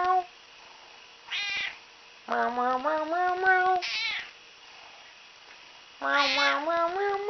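Domestic cats meowing to be fed: about three long, drawn-out meows that rise in pitch, with shorter, higher-pitched meows from a second cat in between.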